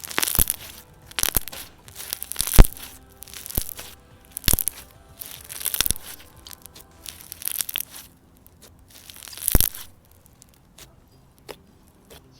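Slime being squished and kneaded by hand, giving sharp crackling bubble pops about once a second. The bursts die away about ten seconds in.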